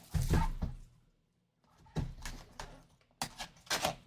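Shrink-wrap plastic being torn and crinkled off a sealed trading-card hobby box, in several short crackling bursts with a brief pause after about a second, along with light handling of the cardboard box.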